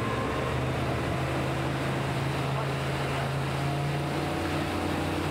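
Twin Honda outboard motors running steadily at speed, driving a boat hull across the water, with the rush of water beneath the engine note.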